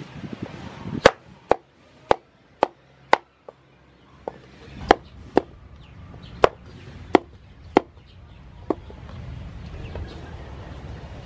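Knife chopping green papaya into chunks on a wooden chopping board: about a dozen sharp knocks of the blade striking the board, irregularly spaced, stopping about three-quarters of the way through.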